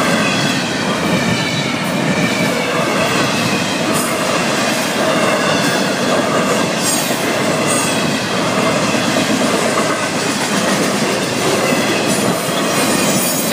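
Florida East Coast Railway double-stack intermodal freight cars rolling steadily past at a grade crossing: a continuous loud rumble of steel wheels on rail with some high wheel squeal. The crossing bells ring under it.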